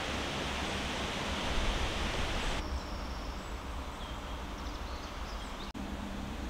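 Outdoor ambience: a steady hiss with a low rumble of wind on the microphone, dropping in level about two and a half seconds in, followed by a few faint high chirps.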